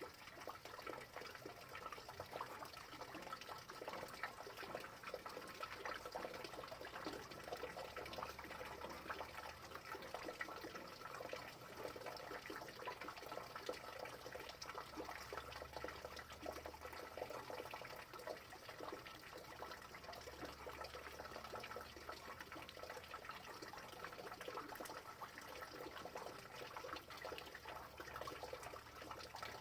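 Steady rain: many small drops falling in a dense, even spatter of tiny ticks.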